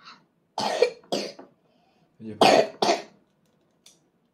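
Coughing: two pairs of short coughs, the second pair about a second and a half after the first and a little louder.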